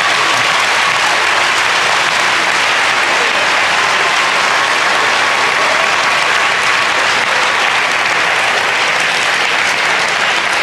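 Large audience applauding, a dense steady clapping that eases a little near the end.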